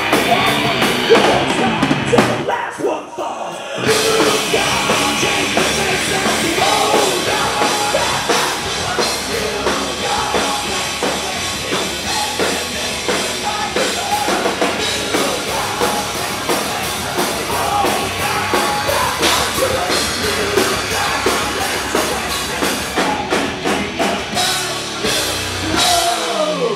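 Rock band playing live: drum kit, electric guitar, bass guitar and a lead singer on microphone. The bass and drums drop out for about a second and a half, starting about two and a half seconds in, then the full band comes back in. There is a falling pitch sweep near the end.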